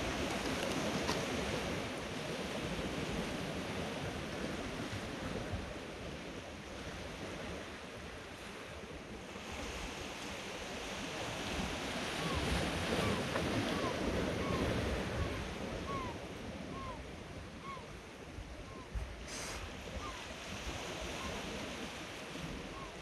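Sea swell washing over the rocks: a steady hiss that surges and ebbs every few seconds, with wind on the microphone. About halfway through comes a run of about ten short, high chirps, roughly one every second.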